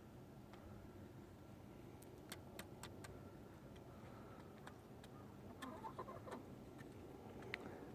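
Quiet backyard chicken flock: scattered light ticks and taps, with a brief soft clucking about six seconds in.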